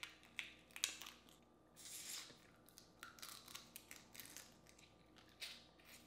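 Boiled crawfish shell cracking and snapping as it is pulled apart by hand: a string of sharp cracks, the loudest about a second in. Short sucking sounds come as the meat is drawn out at the mouth.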